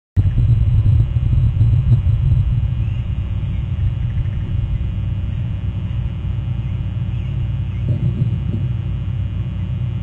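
A steady low rumble over the microphone, strongest in the first two or three seconds. Over it come faint, short, high calls that fit black oystercatchers piping at a distance.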